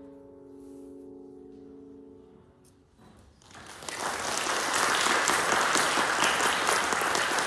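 The final chord of a grand piano dies away, and from about three and a half seconds in an audience breaks into steady applause that soon becomes the loudest sound.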